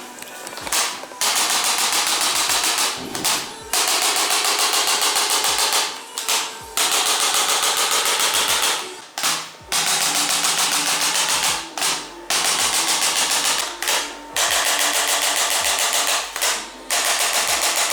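A handheld electric chiropractic percussion instrument tapping very rapidly, like a machine gun. It goes in a string of bursts, mostly one to three seconds long, with short breaks between them.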